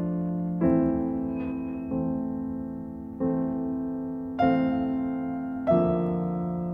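Slow piano music: a chord struck about every 1.3 seconds, each ringing and fading away before the next.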